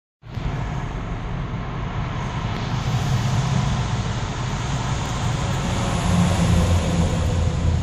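Steady car and traffic noise with a low rumble, heard from inside a car moving slowly in dense highway traffic.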